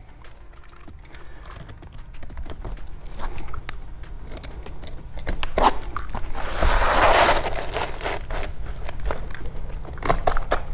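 Asphalt shingle being handled and cut with a utility knife: gritty crunching, crinkling and scraping, with a longer, louder scrape about six to seven seconds in.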